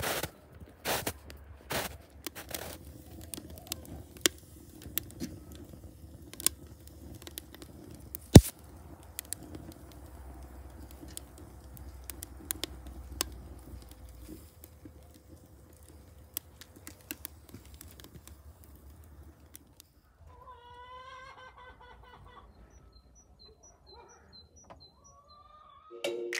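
Footsteps crunching in snow, then a wood fire crackling with scattered pops and one sharp loud pop about eight seconds in. Near the end a chicken calls and a small bird chirps.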